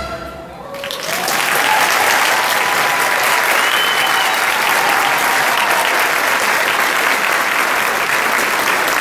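Theatre audience applauding, swelling up about a second in and then holding steady, with a few voices calling out over the clapping.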